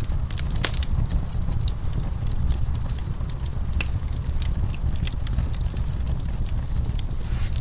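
Wood fire burning in a fireplace, crackling with frequent sharp, irregular pops and snaps over a steady low rumble.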